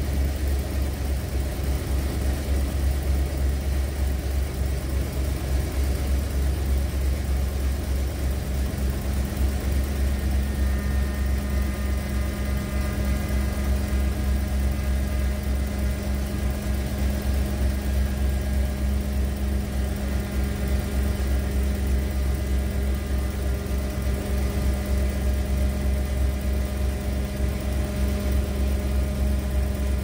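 1991 Ford E350 van's engine idling steadily, heard from underneath the van. A steady whine joins the idle about nine seconds in.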